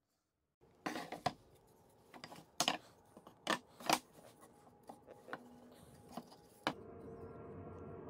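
Wooden boards set down and knocked together on a wooden workbench: a run of irregular sharp knocks. A steady hum comes in near the end.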